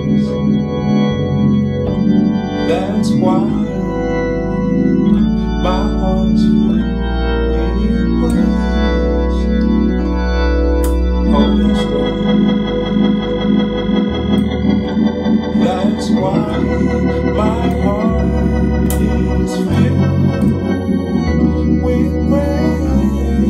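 Two-manual Hammond console organ playing a gospel vamp: sustained chords over a bass that shifts every few seconds, with quick runs of notes up and down the keys and sharp clicks as notes start.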